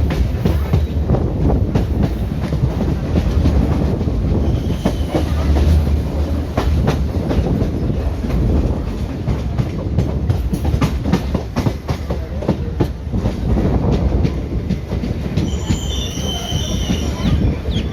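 Wheels of an ICF-built Indian Railways passenger coach running on the rails, a steady heavy rumble broken by many sharp clicks over rail joints. A high-pitched wheel squeal rises near the end.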